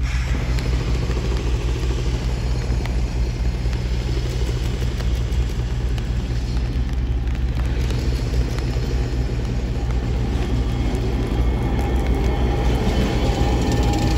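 Toyama Chiho Railway T100 low-floor tram running toward and then close past, rounding a curve of street track, over a steady low rumble. A thin whine grows louder over the last few seconds as the tram comes alongside.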